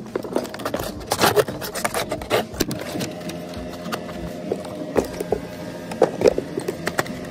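Irregular knocks, clatters and scrapes of white vinyl siding panels being handled against the metal starter strip, over a steady mechanical hum.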